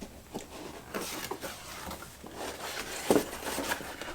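Corrugated cardboard pieces being handled and shifted about: scattered rustles, taps and light knocks, the loudest knock about three seconds in.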